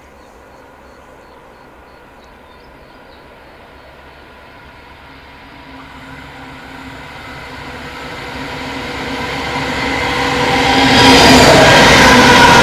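Coal train hauled by three Pacific National TT and 92 class diesel-electric locomotives approaching, its engines growing steadily louder. About eleven seconds in, the lead locomotive passes close by with loud engine and wheel noise.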